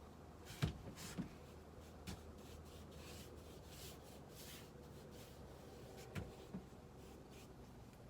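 Faint rubbing strokes on wood, with a few soft knocks about half a second in, near two seconds, and again around six seconds.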